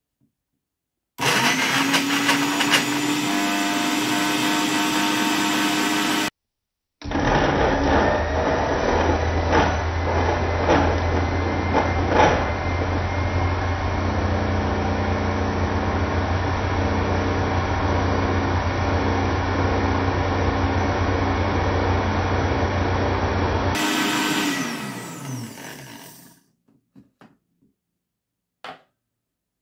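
Countertop blender motor running at full speed, chopping a whole green pepper, with scattered clicks of the pieces against the jar. It stops for under a second after about five seconds and starts again. Some twenty seconds in it switches off and winds down, falling in pitch, and a few faint clicks follow near the end.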